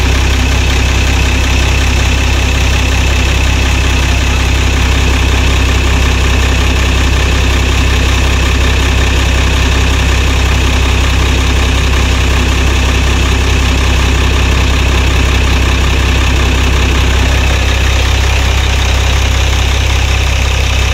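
Howo 380 A7 truck's diesel engine idling steadily with a strong low hum.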